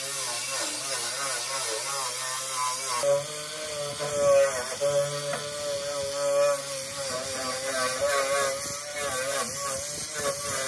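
Electric angle grinder with a wire brush scouring rust off rusty sheet steel. Its motor whine wavers in pitch as the brush is pressed into the metal, over a steady gritty hiss.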